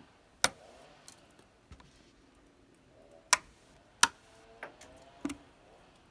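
Icicles along a roof edge snapping off as a hand knocks them: four sharp cracks, one near the start and three in the second half, with a few lighter ticks of breaking ice between.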